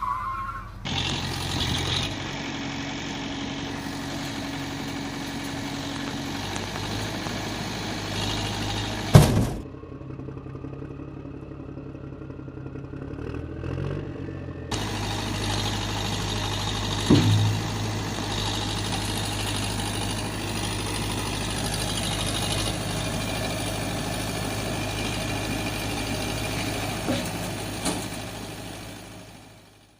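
Tractor engine running steadily at a low pitch, broken by abrupt cuts about a third and halfway through, with a sharp knock twice; it fades out at the end.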